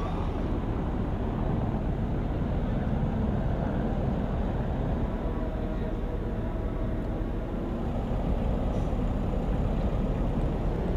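Steady low rumble with no clear pitch, the outdoor background noise of engines and wind around an airfield or dockside.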